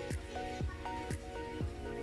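Electronic background music with a steady beat: deep kick drums about twice a second under held melodic notes.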